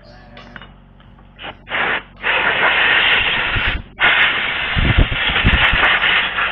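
Compressed-air blow gun hissing in a couple of short blasts, then two long blasts split by a brief break, blowing brake dust off a scooter's rear drum brake shoes and backing plate.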